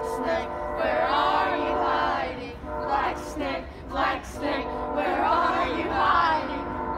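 A group singing a children's game song together in phrases, with a steady droning hum underneath.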